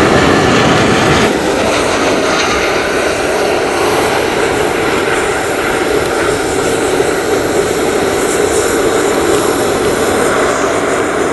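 Boeing 737-800's CFM56 turbofan engines: a steady, loud jet rumble as the airliner comes in to land and rolls out along the runway.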